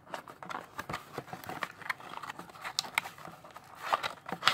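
A cardboard trading-card box being opened by hand: irregular clicks, scrapes and rustles as the lid is worked open and the card inserts inside are pulled out.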